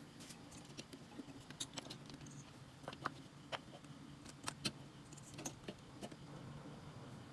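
Scattered light metallic clicks and clinks as the finned aluminium heatsinks of an inverter's MOSFET power board are handled and set into its metal chassis, over a faint steady low hum.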